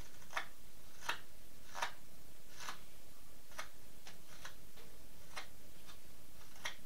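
Carving knife taking fine shavings off a pine duck decoy's bill: about eight short scraping strokes at roughly one a second, a little uneven.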